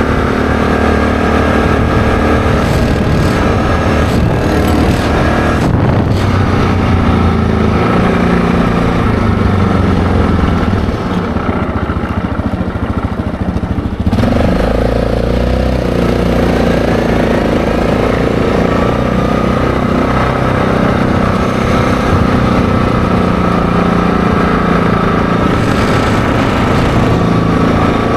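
ATV engine running while riding along a road, with wind noise. It eases off about eleven seconds in, the sound changes abruptly about three seconds later, and then the engine pulls away again with a rising pitch.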